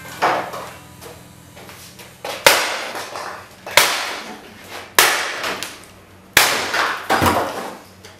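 Sledgehammer smashing into a wooden sculpture built of pallets and painted boards: about six heavy blows, roughly one every second and a half, each crash dying away over about a second.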